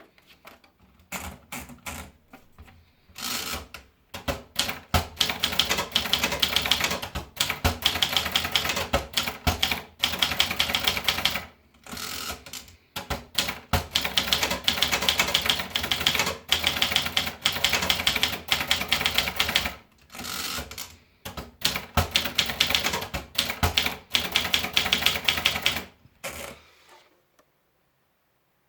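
Vendex typewriter being typed on: fast runs of sharp keystrokes with short pauses between them, stopping near the end.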